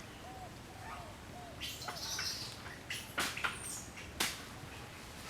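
Small animal calls: four short, arched chirps in quick succession, then a brief high squeal, followed by three sharp clicks or knocks near the middle.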